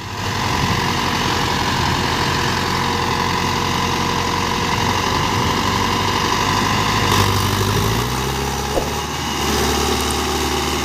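Indo Farm tractor's diesel engine running under load as the tractor strains forward through deep mud. A steady whine rides over it for the first seven seconds or so, and the engine note changes about eight seconds in.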